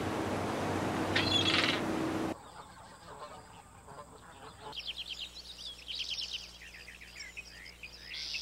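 A steady low hum over a rushing noise, with one chirp in it, cuts off suddenly about two seconds in. Then small birds sing quietly in quick runs of short falling chirps.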